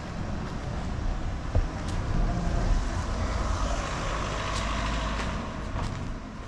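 A motor vehicle's engine running close by, swelling through the middle and easing off near the end.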